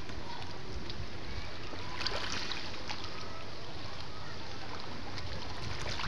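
Small waves lapping and washing against rocks and pebbles at the water's edge, a steady sea-shore wash with a low rumble underneath.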